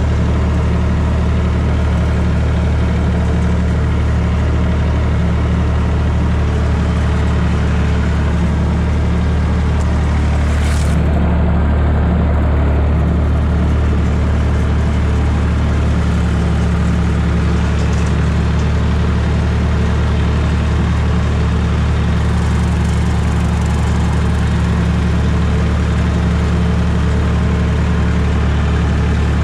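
Massey Ferguson 245 tractor engine running steadily under load while mowing with a tractor-driven rotary cutter (bush hog) through grass.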